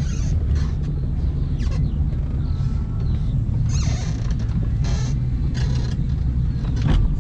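Motorboat engine running with a steady low rumble, a few brief clicks and knocks over it.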